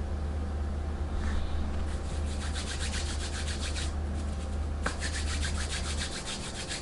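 Two runs of rapid rubbing strokes, about ten a second, each lasting a couple of seconds, over a steady low hum.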